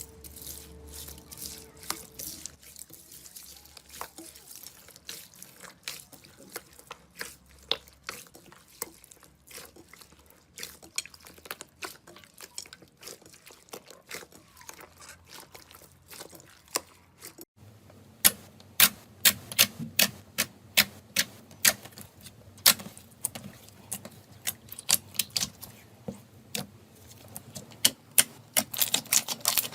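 Slime being squished and poked by hand, making a run of wet clicks and pops. About two-thirds of the way in the sound changes abruptly, and the clicks become louder and sharper.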